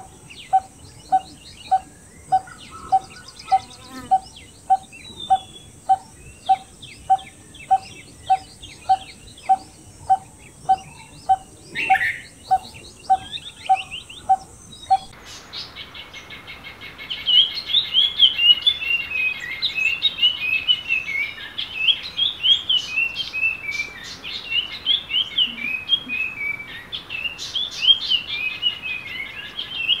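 A barbet calling a long, even run of single hollow 'tuk' notes, about two a second, over a steady high insect hiss and scattered chirps of other birds. About halfway it gives way to a busy chorus of many small birds chirping.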